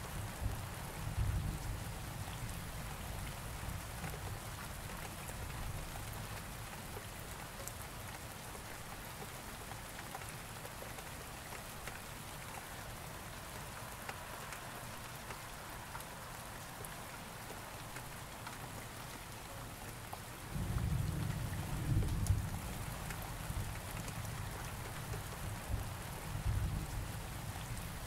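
Steady rain falling, with a low thunder rumble that fades in the first few seconds and a louder rolling thunder that starts about two-thirds of the way through and trails off slowly.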